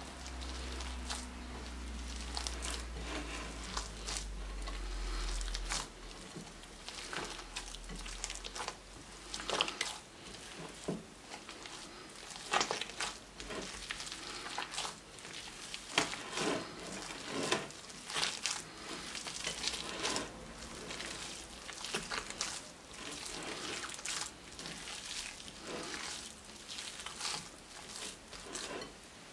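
Bare hands kneading and squeezing boiled mashed potato mixed with egg in a glass bowl: irregular, wet squishing and squelching in quick uneven strokes.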